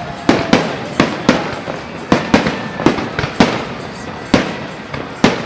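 Fireworks salute: an irregular string of sharp bangs, about two a second, each trailing off in an echo.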